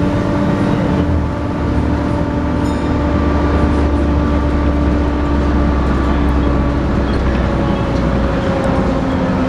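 Volvo B7TL double-decker bus engine running steadily under way: a low rumble with a steady whining 'hoover' drone on top, which sags slightly in pitch near the end.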